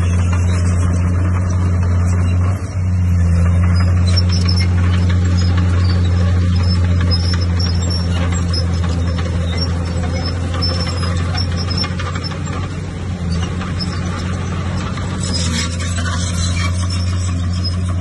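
Diesel engine of a heavy earthmoving machine running steadily with a deep drone, dipping briefly about two and a half seconds in.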